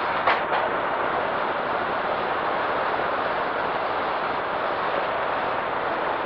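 Steady rush of slipstream wind and the drone of a C-47's twin radial engines, heard at the open jump door in flight. A brief knock sounds about a third of a second in, followed by a smaller one.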